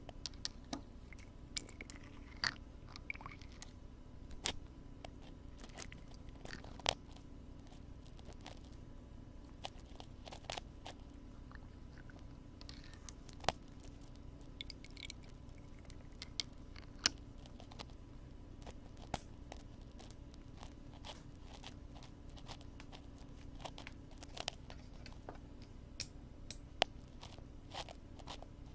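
Ear-cleaning sounds close to a binaural microphone's ear: irregular crunchy scratches and sharp clicks of a tool working at the ear, over a steady low hum.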